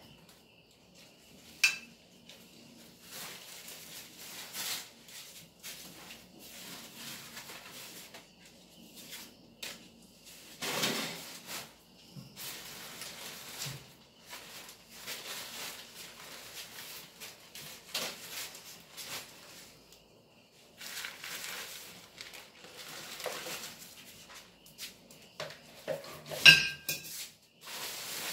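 Thin paraglider nylon fabric rustling and crinkling in irregular spells as it is handled, lifted and laid out. A sharp click with a brief ring comes about two seconds in, and a louder one near the end.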